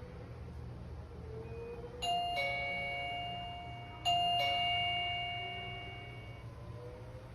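Electronic doorbell chime from the ZUMIMALL video doorbell set, sounding twice about two seconds apart; each is a quick two-note ding-dong that rings on and fades away over about two seconds.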